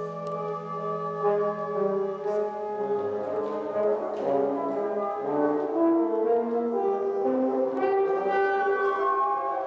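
Woodwind quintet playing live (flute, oboe, clarinet, French horn and bassoon): several held notes overlapping, the voices moving from note to note.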